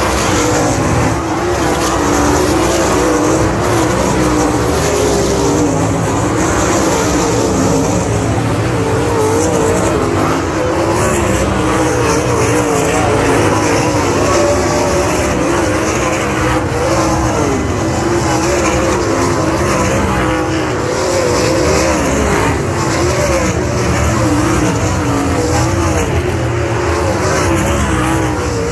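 Winged dirt-track sprint cars racing on the oval, their V8 engines running hard at high revs. The loud, continuous engine noise wavers up and down in pitch as the cars go around.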